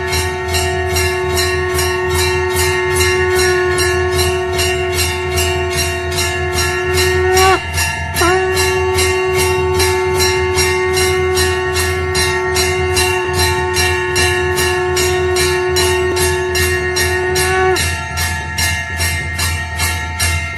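Temple bells rung in a steady rhythm of about three strikes a second, aarti style. Over them runs a long held tone that dips and breaks off briefly about eight seconds in, then carries on and stops a few seconds before the end.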